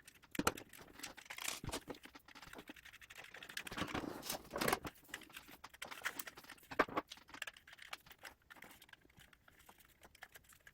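Faint clicking and scraping of a small screwdriver and fingers working screws out of the plastic body of an HO-scale model locomotive, in scattered small handling noises with a few louder clusters.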